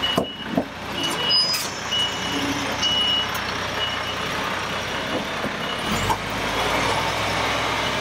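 Reversing alarm of a MAN TGS truck giving repeated short beeps over its running diesel engine; the beeps fade out after about five seconds, and the engine's low sound grows stronger about six seconds in.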